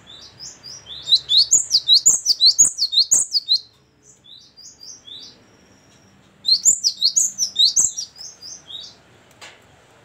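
Cinereous tit singing: two loud runs of rapid, repeated, high down-sweeping whistled notes, one starting about a second in and one about six and a half seconds in, with softer calls between them. A few sharp clicks sound during the song.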